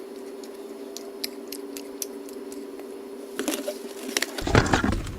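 Close-miked eating sounds: scattered small mouth clicks and smacks of someone chewing cheesesticks over a steady hum. Near the end the sound grows louder and busier.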